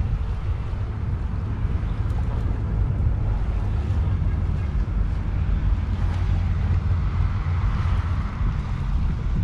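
Wind buffeting the microphone: a steady low rumble over a faint hiss, with no clear pitched sound.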